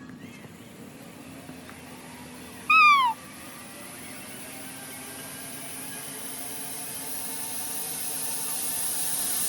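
A short, loud, high cry that falls in pitch, about three seconds in, over a steady hiss that slowly grows louder toward the end.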